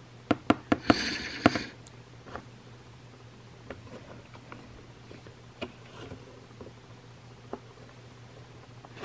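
Several sharp taps on a toy's cardboard-and-plastic blister card, with a brief crinkle of the plastic bubble about a second in as the card is handled. After that only faint, occasional handling clicks as it is turned over, over a low steady hum.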